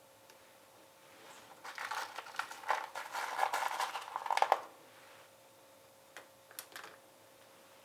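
Small kitchen items being handled: a run of quick light clicks and rattles for about three seconds, then a few single clicks a little later.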